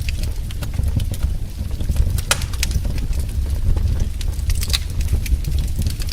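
Wood fire crackling, with irregular sharp pops over a steady low rumble; the loudest pop comes a little over two seconds in.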